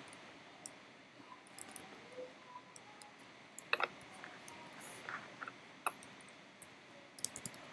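Computer keyboard being typed on: faint, irregular single keystrokes, with a quick run of several clicks near the end.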